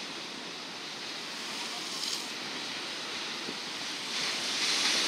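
Rough, storm-driven sea surf breaking against a concrete seawall in a steady wash, with a louder wave crashing and spraying from about four seconds in.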